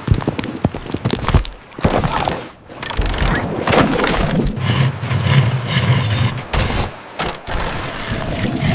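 A quick run of knocks, clicks and clatters, with a low hum underneath for a couple of seconds in the middle.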